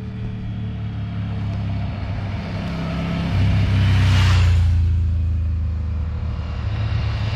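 Triumph Tiger 1200 adventure motorcycles riding past, a steady low engine note that swells to its loudest as one passes close about four seconds in, then eases off.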